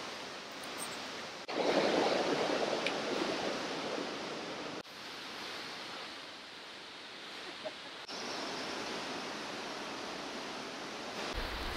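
Steady rushing of a fast-flowing creek, an even hiss with no pitch. Its level jumps abruptly several times and is loudest from about a second and a half in until about five seconds.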